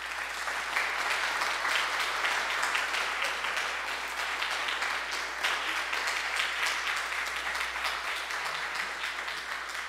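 Audience applauding: dense, steady clapping from many hands that slowly fades toward the end.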